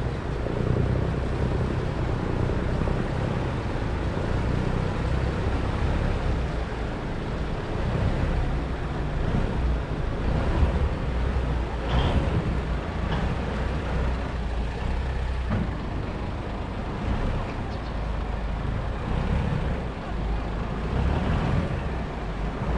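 Diesel engine of a long Khlong Saen Saep canal boat running with a steady low hum as the boat is backed up to turn in the canal.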